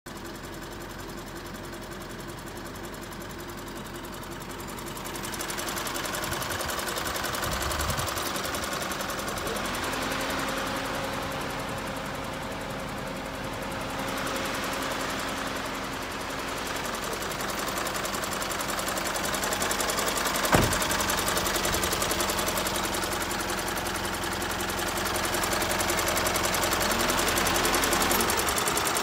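Isuzu 4JJ1 four-cylinder turbodiesel idling with a steady, even clatter that grows louder toward the end. A single sharp knock sounds about twenty seconds in.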